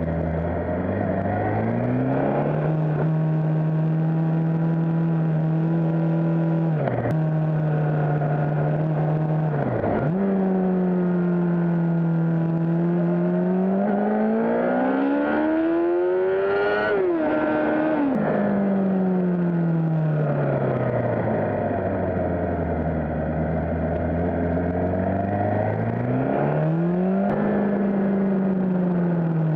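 Suzuki GSX-R600 sportbike's inline-four engine being ridden through bends, its revs rising and falling with throttle and gear changes. The note drops sharply twice early on, climbs long and high about halfway through, falls away low, then rises again near the end.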